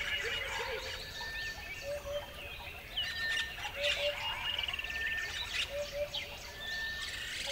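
Several birds singing: a low two-note call repeats about every two seconds, a thin high whistle falls between each repeat, and scattered quick chirps run throughout.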